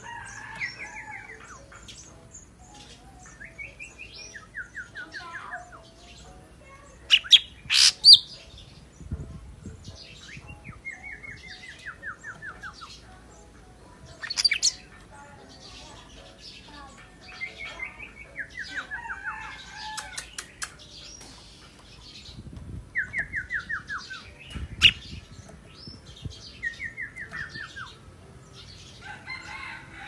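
Golden-fronted leafbird singing: short phrases of rapid, falling notes repeated every few seconds, with a few loud, sharp snaps in between.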